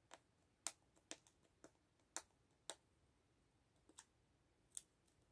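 Faint, irregular clicks of fingernails picking at the tape on a plastic gachapon capsule, about one or two a second.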